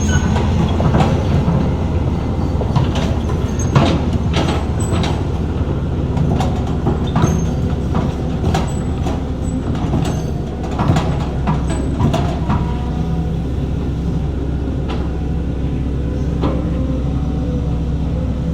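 Heavy diesel earthmoving machinery running steadily with a deep engine drone, overlaid by a series of irregular metallic clanks and knocks that thin out after about twelve seconds.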